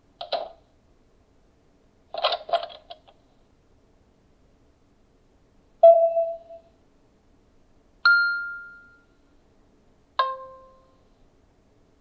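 Wyze Chime plug-in doorbell speaker playing its tune previews one after another: a recorded door-close sound, then a door-open sound of several quick clicks, then three single chime notes, each at a different pitch, ringing and fading.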